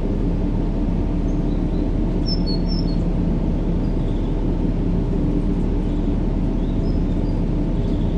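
Steady sleep-aid noise, a continuous low rumbling hiss with a faint drone in it, unchanging throughout. Faint high bird chirps sound over it, a few together about two to three seconds in.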